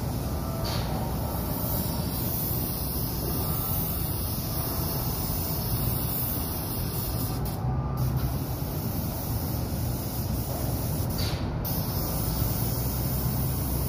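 Paint spray gun hissing steadily over a steady low machinery hum. The hiss cuts out briefly twice, about halfway through and again about four-fifths through, as the trigger is let go.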